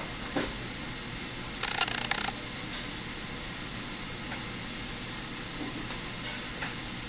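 Steady background hiss of room tone, with a short burst of noise about two seconds in.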